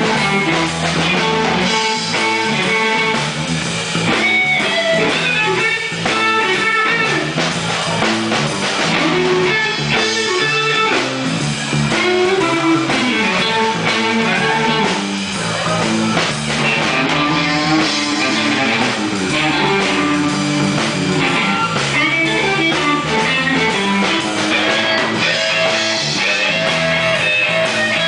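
Live rock and roll band playing an instrumental passage with no vocals: electric guitar carrying the lead over a drum kit.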